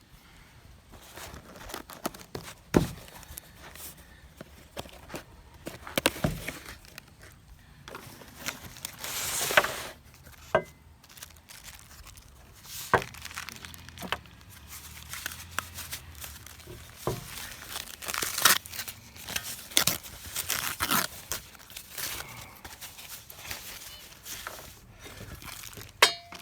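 Packaging being opened by hand: crinkling, rustling and tearing of wrapping, with scattered knocks and clicks as the box and its contents are handled.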